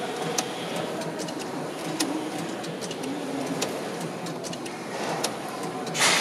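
Railway roll-sign destination indicator winding its blind from one destination to the next: a steady mechanical whir with scattered small clicks, and a brief louder rush near the end.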